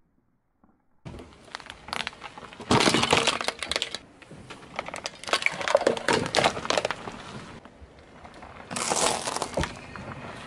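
Hard plastic cracking and crunching as a car tyre rolls onto it and crushes it, in loud bursts about two seconds, five to seven seconds and nine seconds in.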